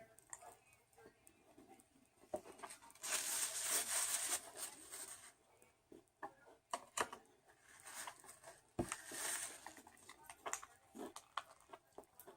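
Takeout food packaging rustling and crinkling in two longer bursts, about three and eight seconds in, with scattered small clicks and taps in between, as a meal is handled and eaten close to the microphone.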